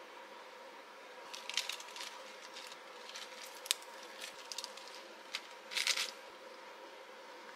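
Crisp lettuce leaves crinkling and rustling in short bursts as they are pulled from a bunch and laid on bread, with a few sharp clicks; the loudest rustle comes near the end. A faint steady hum runs underneath.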